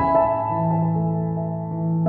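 Slow, gentle background music with long held notes.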